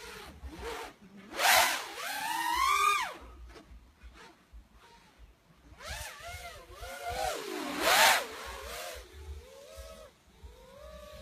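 FPV racing quadcopter's brushless motors and propellers whining, the pitch rising and falling as the throttle changes. The two loudest surges come about a second and a half in and about eight seconds in, with a fainter wavering whine near the end.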